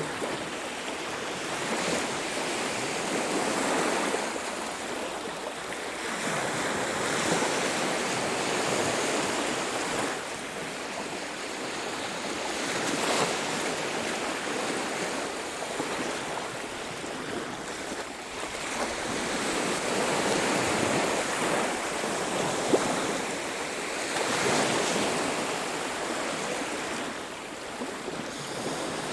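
Ocean waves breaking on a beach: a steady wash of surf that swells and falls back every few seconds.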